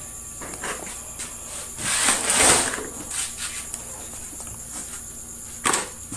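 Crickets chirring steadily in a high, even band. About two seconds in, a louder burst of noise lasts about a second, and a sharp click comes near the end.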